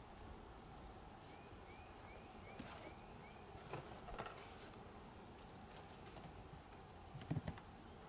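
Quiet outdoor ambience with a steady high whine and a short run of quick chirps, about three a second. A few soft knocks from wooden hive boxes and lids being handled, the loudest a quick double knock near the end.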